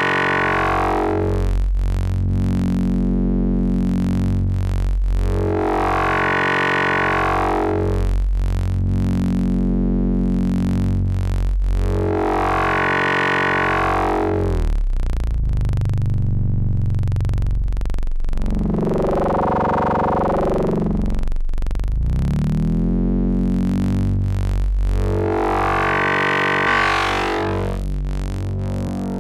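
Raw u-he Zebra 2 software synthesizer holding a low sustained note, being wave-shaped. Its tone slowly swells from dull to bright and back, about every six and a half seconds, while the loudness stays steady.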